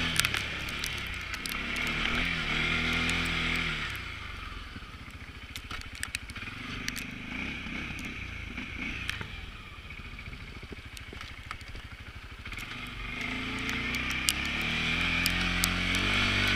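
CFMoto CForce ATV engine running with its pitch rising and falling as it is ridden, loud at first, fading back for several seconds, then loud again near the end. Scattered clicks and crackles are heard throughout.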